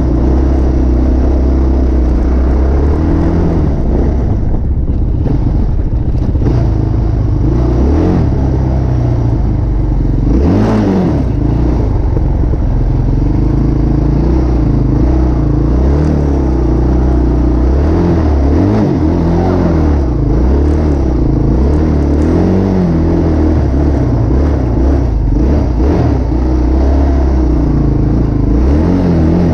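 Engine of the vehicle carrying the camera, running loud and close, its revs rising and falling as it drives over snow and along a snowy road. A brief rattle or bump about ten seconds in.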